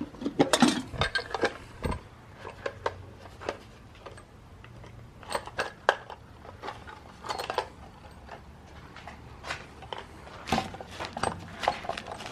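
Irregular metallic clinks and clanks of hand tools and metal parts being handled, with a cluster of louder knocks right at the start and another about ten seconds in.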